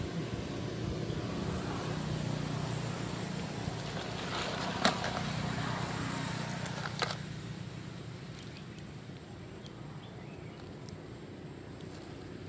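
A motor vehicle engine running with a steady low hum that drops lower after about seven seconds. Two sharp clicks stand out, about five and seven seconds in.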